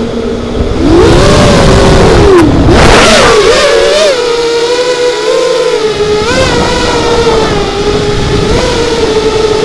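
FPV quadcopter's electric motors and propellers whining. The pitch swoops up and down with throttle changes, with a brief rush of air about three seconds in, then settles into a steady hum.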